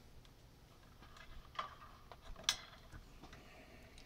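A few faint clicks and light taps of small tools and parts being handled on a workbench, the sharpest about two and a half seconds in.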